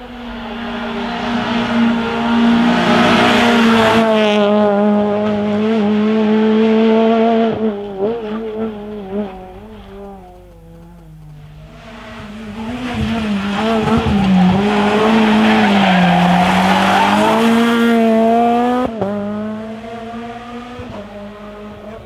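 Rally car engines at high revs on a tarmac special stage, heard in two passes one after the other. Each one grows louder, holds with the pitch stepping up and down through gear changes and lifts off the throttle, then fades.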